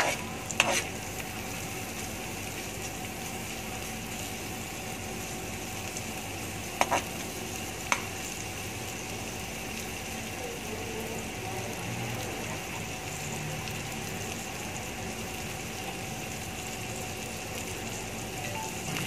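Chopped onion frying in a spoonful of oil in a metal frying pan: a steady sizzle. A few sharp clicks stand out, one just after the start and two around seven and eight seconds in.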